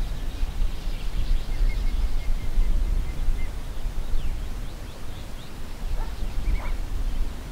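Wind buffeting the microphone in uneven gusts, with birds chirping and calling in short notes, one more prominent call near the end.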